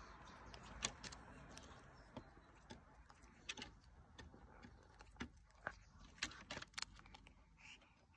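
A bird pecking at biscuits: a dozen or so light, irregular clicks and taps over faint background.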